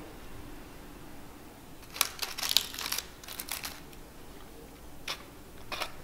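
Wooden chopsticks picking up a breadcrumb-coated fried oyster from a paper-lined tray: a run of crisp clicks and crackles about two seconds in, then a single click and a brief second cluster near the end.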